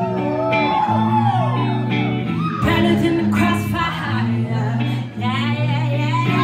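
Live band performance: a woman sings a gliding, held melody over amplified electric guitar and sustained low notes.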